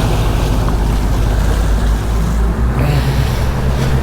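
Boat engines running steadily at trolling speed, a low drone with wind and water noise over it; the engine note rises slightly about three seconds in.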